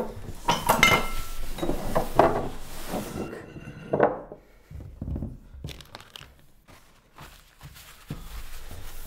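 A few knocks and clatters of things on a wooden table in the first three seconds, then paper kitchen towel rustling and crumpling as it is pressed and wiped over spilled coffee on the tabletop.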